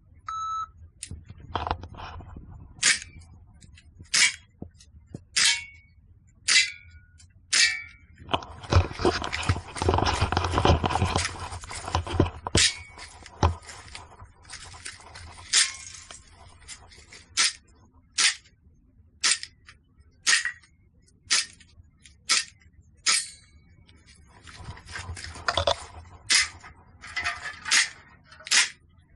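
Airsoft gun shots fired one at a time, about twenty sharp cracks roughly a second apart, several followed by a short metallic ping as a BB hits a tin can target. A few seconds of loud rustling noise come between the shots about a third of the way in.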